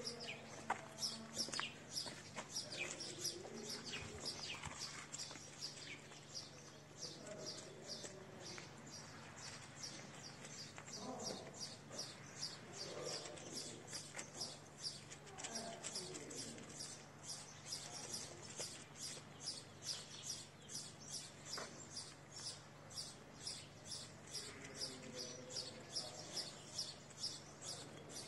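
A small bird chirping over and over, short high chirps at about three a second, with faint soft sounds underneath.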